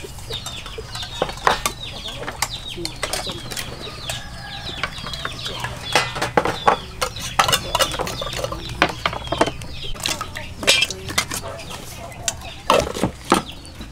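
Tins of fish in tomato sauce being opened and emptied into a steel bowl: many sharp metal clicks and knocks of cans and spoons against the bowl. Chickens cluck and chirp in the background.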